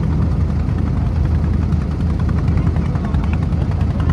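Boat engine running steadily under way, a loud low drone, with water rushing and splashing past the hull.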